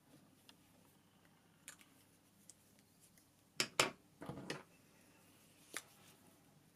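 Plastic felt-tip pens being capped, put down and picked up: faint scattered clicks, two sharper clicks about halfway through, a short rattle just after, and one more click near the end.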